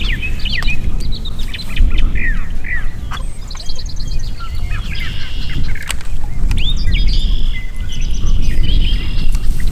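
Several songbirds chirping and singing, with short rising and falling chirps throughout and a rapid trill of repeated notes about three and a half seconds in and again near eight seconds. A steady low rumble runs underneath.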